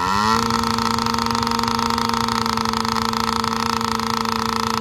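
Yamaha PW50's small two-stroke engine running: its pitch rises briefly at the very start, then holds at a steady idle.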